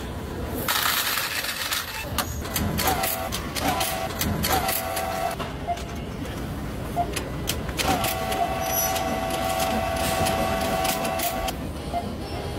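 Coins clattering and rattling through a coin-counting kiosk as a handful is fed into its tray, with a dense rattle about a second in. The kiosk gives a few short electronic beeps a few seconds in, then one long steady beep lasting about three seconds near the end.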